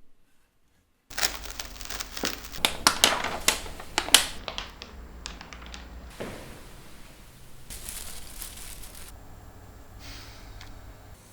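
Printmaking materials handled at close range: paper crumpling, tearing and scratching. After about a second of dead silence comes a dense run of sharp crackles and scratches, which thins into scattered clicks and then a softer rustle.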